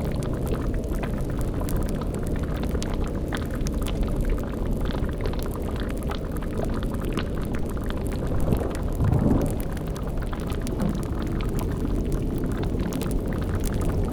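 Layered spooky ambience: a steady low rumble with bubbling and crackling, like a boiling cauldron over a fire. A brief louder, deeper swell comes about nine seconds in.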